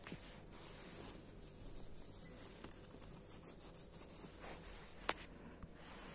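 Faint rustling of a camouflage jacket's fabric and zipper being handled by hand, with a run of quick ticks in the middle and one sharp click about five seconds in.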